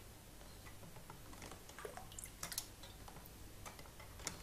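Faint drips and small splashes of liquid as an aluminium sheet hung on a wire is dipped and moved about in a plastic tub of acid neutralising bath, with a few light clicks.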